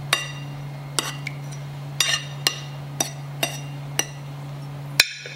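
A metal spoon clinking against dishes while salad is spooned onto a plate: about nine short, ringing clinks, roughly one a second, the sharpest one near the end.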